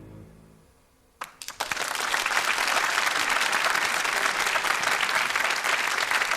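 The last piano chord of a jazz piano trio dies away, then a live audience starts applauding: a few scattered claps at first, then steady applause. It is heard from an FM radio broadcast taped on cassette.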